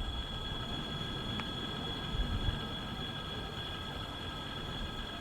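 Train running on the line: an irregular low rumble with a thin, steady high-pitched whine over it.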